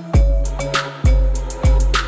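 Instrumental background music with a steady beat of heavy bass-drum hits and snare cracks.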